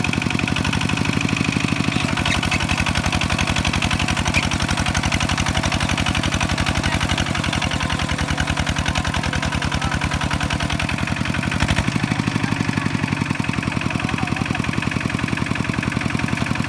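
Kubota walking tractor's single-cylinder diesel engine running steadily with a rapid, even chug. A single short knock about two-thirds of the way through.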